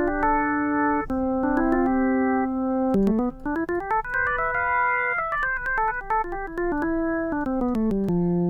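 Sampled organ patch from a Kontakt organ library played on a keyboard: held chords, then from about three seconds in a run of notes that climbs and comes back down, each note starting with a click.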